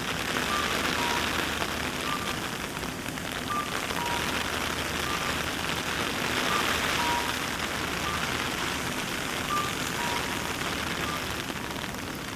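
Steady rain falling and pattering on surfaces. A faint two-note electronic beep, a higher note then a lower one, repeats every few seconds.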